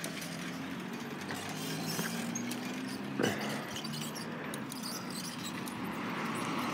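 Faint hum of a distant truck engine under steady outdoor traffic noise, growing a little louder near the end, with one short sound about three seconds in.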